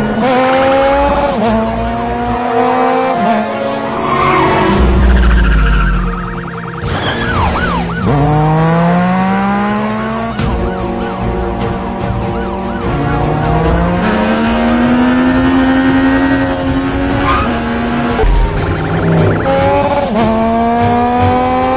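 Engines of a sportbike and sports car revving hard, pitch climbing and dropping back again and again as they shift up through the gears at speed.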